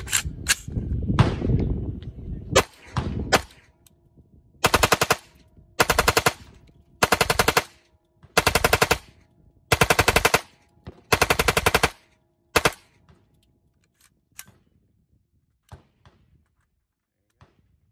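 Select-fire AR57 in 5.7x28mm firing on full auto at about 750 rounds a minute. A few separate shots come first, then six short bursts of several rounds each, then one last single shot. Faint clicks follow near the end as the P90 magazine is pulled out.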